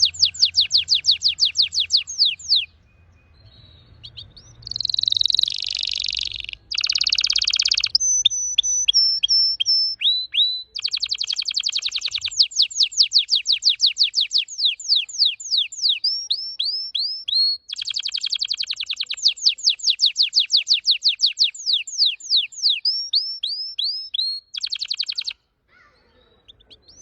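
Red factor canary singing: long fast runs of falling notes, several notes a second, mixed with dense buzzy rolls and a few short steady whistles, with two brief pauses.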